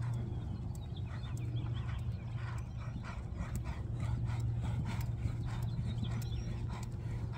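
Horse trotting on a sand arena: a steady run of soft, evenly spaced hoofbeats. A steady low hum runs underneath, and faint high-pitched whines come about a second in and again near six seconds.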